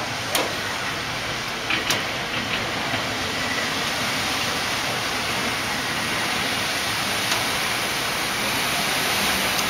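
Steady rushing hiss of water on a flooded street, with two faint clicks in the first two seconds.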